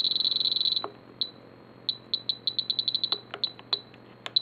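Spektrum DX7 radio transmitter beeping as its scroll roller is worked to step a travel-adjust value: a fast string of high electronic beeps that runs together into one steady tone for most of the first second, then single beeps and a quick cluster, with a few soft clicks.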